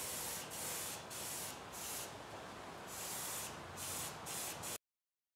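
HVLP paint spray gun spraying paint in short bursts, about seven hissing passes as the trigger is pulled and released; the sound cuts off suddenly near the end.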